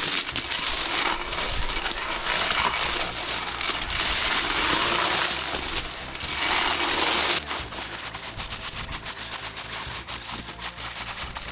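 Battery-powered cutting tool working through brush and branches in several loud bursts of cutting noise, dropping to a lower, ticking level about seven seconds in.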